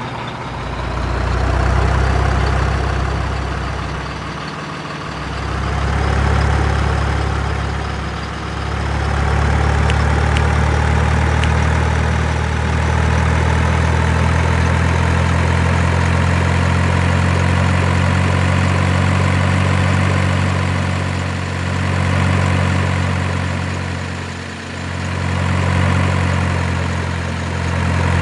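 Heavy diesel engine of a work vehicle running loud and steady, easing off briefly about four and eight seconds in and twice more in the last third, then picking up again each time.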